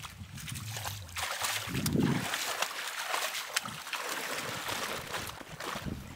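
River water rushing and splashing as a steady hiss with crackly spatters, with low wind rumbles on the microphone about two seconds in.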